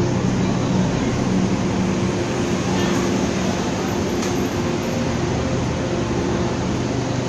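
Railway station ambience: a steady low mechanical hum with the faint murmur of people's voices underneath.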